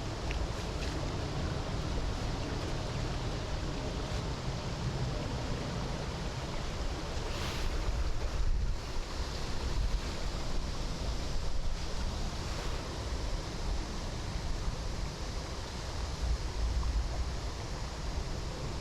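Steady outdoor ambience of wind in the trees and soft rain, with gusts buffeting the microphone as an uneven low rumble.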